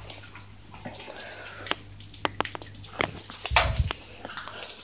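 Irregular sharp clicks and taps of a Shiba Inu's claws and paws on a concrete floor as it scrambles after tossed food, with a louder thump about three and a half seconds in.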